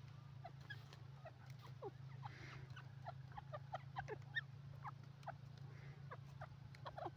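Grey francolin giving soft, short squeaky calls: many brief falling notes at an uneven pace, thickest in the middle, over a steady low hum.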